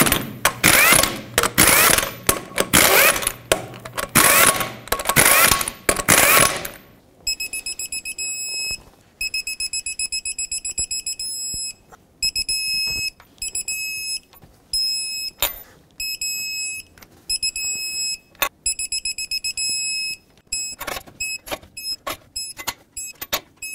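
A 1/2-inch impact gun runs the lug nuts down in a string of short bursts for about the first seven seconds. Then a torque wrench beeps in repeated high tones, two long ones and then shorter, quicker beeps with a few clicks between, as each lug nut reaches its set torque of 165 foot-pounds.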